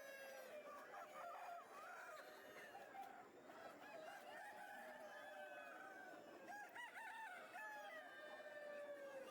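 A flock of chickens calling faintly over one another, with clucks and a rooster crowing, the crow drawn out near the end.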